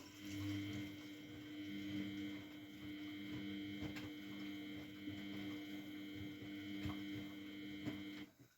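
Miele Novotronic W912 washing machine running with a steady electrical hum, a few faint ticks and knocks mixed in. The hum cuts off suddenly near the end.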